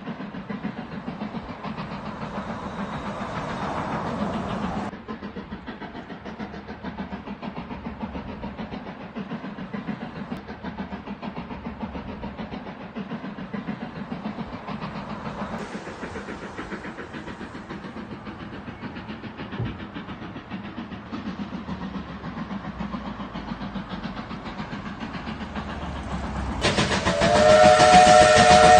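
Steam locomotive hauling a train, its exhaust beating in a steady rhythm. About two seconds before the end, a loud steam whistle sounds: a chord of several tones, held.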